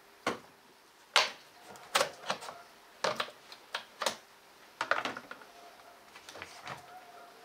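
Irregular sharp knocks and metallic clinks, about a dozen over several seconds, some ringing briefly: hand tools and car parts being handled and knocked together during work on an engine.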